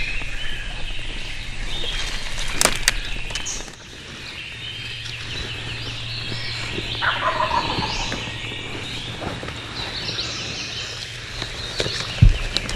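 Wild turkey gobbler gobbling: one rattling, falling gobble about seven seconds in, over steady higher chirping. Handling knocks from the camera, with a loud thump near the end.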